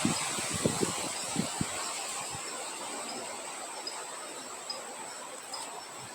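Wind blowing as a steady hiss, with low gusts buffeting during the first two seconds and then dying down, over a steady high insect trill with faint repeated chirps.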